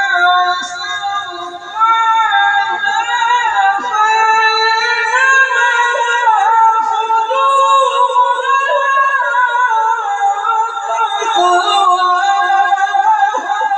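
Melodic Quran recitation by a male qari in a high register: one voice drawn out in long, ornamented notes that glide up and down almost without a break.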